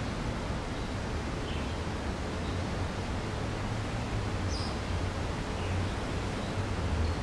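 Steady outdoor background noise with a constant low rumble. A few faint, short high chirps stand out, the clearest about halfway through.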